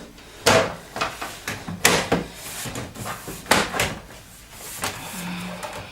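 Sheet-metal PC case side panel being pushed and knocked into place: several sharp metallic clunks with scraping between them as it is worked onto the frame. The owner thinks the panel is slightly bent, so it does not seat easily.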